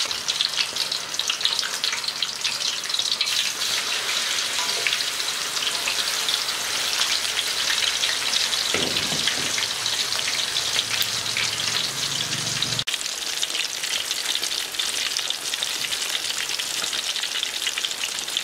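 Chicken thighs frying in hot oil in a steel wok: a steady, dense crackling sizzle.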